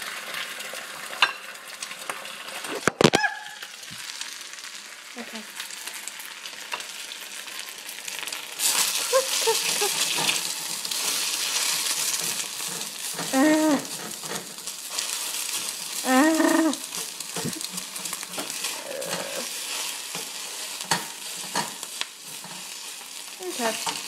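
Eggs frying in a stainless-steel pan, a steady sizzle that grows louder about nine seconds in. A single sharp knock about three seconds in.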